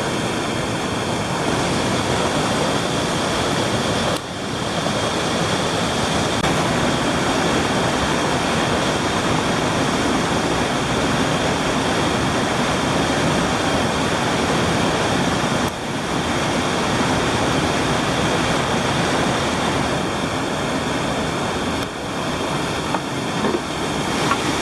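Loud, steady rush of whitewater churning through a river rapid, broken by three abrupt shifts in the sound.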